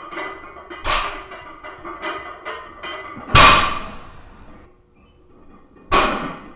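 Background music, with a loaded barbell's iron plates banging down on the floor three times as deadlift reps are set down, the loudest about halfway through.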